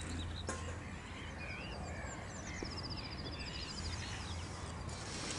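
Outdoor ambience of small birds singing: scattered short chirps, with a rapid high trill in the second half, over a steady low hum.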